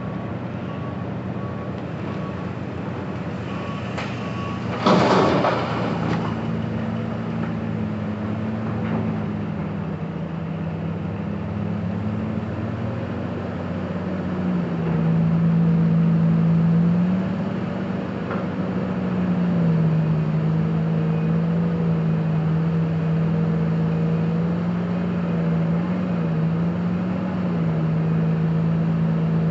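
Komatsu PC2000 hydraulic excavator's big V12 diesel drones steadily as it works, its pitch stepping up and down and getting louder from about halfway through as the engine takes the digging load. A loud crash of rock about five seconds in.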